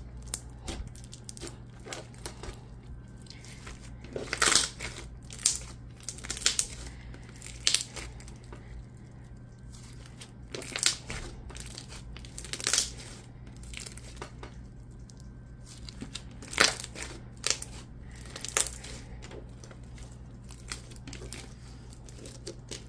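Glossy clear-and-clay slime with beads mixed in, squished, stretched and folded by hand, giving irregular wet pops and clicks, some sharper and louder than others.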